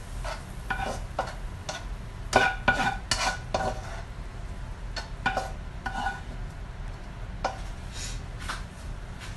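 Spatula scraping and knocking against a non-stick wok as stir-fried greens are scraped out into a bowl, in four quick clusters of strokes, each with a short ring from the pan.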